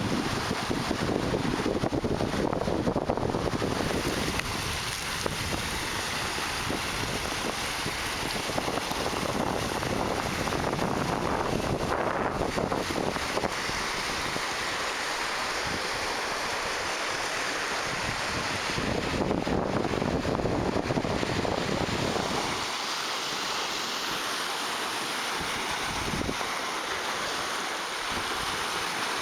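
Lake Superior waves breaking and washing on shoreline rocks, the surf swelling and easing every several seconds, with wind buffeting the microphone.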